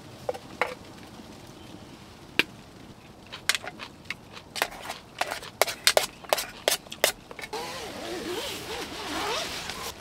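Wooden chopsticks clicking and scraping against a metal camping pot and bowl while eating, about a dozen sharp clinks, quickest in a run a little past halfway. In the last couple of seconds a steady rushing noise takes over.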